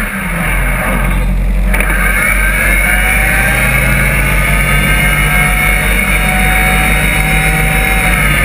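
Off-road buggy's engine running steadily while the buggy sits in muddy water, its pitch wavering only slightly.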